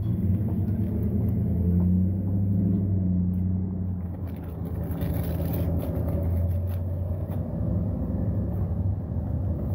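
Steady low engine rumble with a constant hum, and a few faint clicks partway through.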